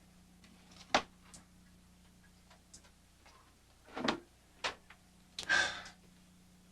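A few sharp clicks and knocks, with a short noisy burst near the end, over a faint steady hum.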